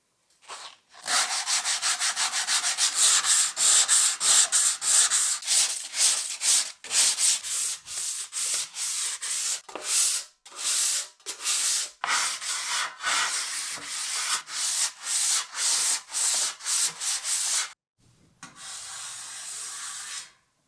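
Hand sanding with fast back-and-forth strokes, about three a second. Near the end it pauses briefly, then a shorter, steadier stretch of rubbing follows.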